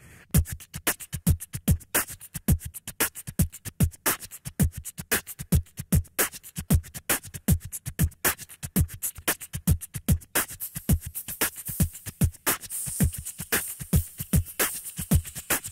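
Beatboxed beat built up on a loop station: a steady rhythm of deep kick-drum sounds that drop in pitch, with sharp snare and hi-hat clicks made by mouth. About ten seconds in, a denser hissing hi-hat layer joins, and it thickens again near the end.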